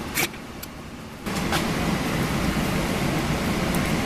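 Steady low hum of workshop background noise, with a sharp click just after the start. The hum drops away briefly and comes back louder about a second in, with a few light clicks of small parts being handled.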